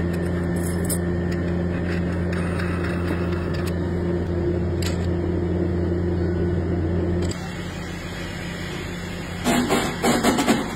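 Steady electric machine hum with a low droning tone, which cuts off about seven seconds in. Near the end a rapid rattling clatter starts.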